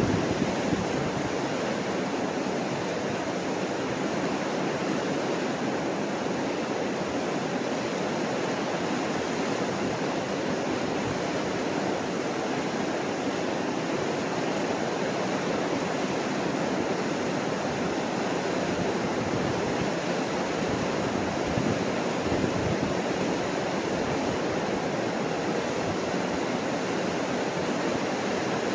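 Mississippi River water rushing over the rock falls of the Chain of Rocks rapids: a steady, even white-water rush.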